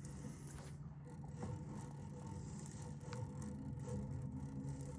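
Spinning or casting fishing reel being cranked to bring in a hooked catfish, a faint scraping whir, over a steady low hum.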